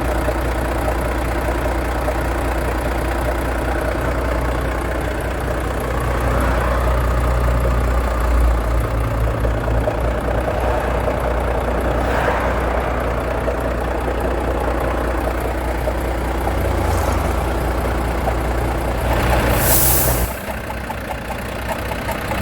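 Volvo FH13 truck's D13 inline-six diesel running at idle with a foreign knocking and grinding noise from the valve cover area, the sign of a valvetrain fault. A short hiss of air sounds near the end.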